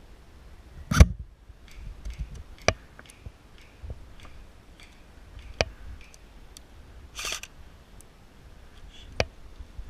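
Airsoft guns firing single shots as sharp, irregularly spaced snaps, the loudest about a second in, with fainter shots between. A short hissy burst comes near seven seconds.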